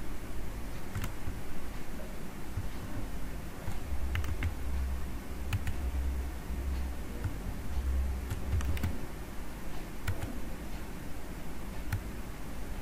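Irregular clicks of a computer mouse and keys, about ten spread out, over a steady low hum.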